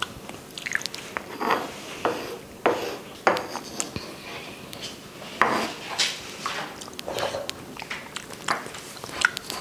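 Close-up eating sounds: a wooden spoon scooping through wobbly agar-agar jelly (a raindrop cake) on a wooden board, with wet mouth sounds of eating it, heard as irregular short clicks and squelches.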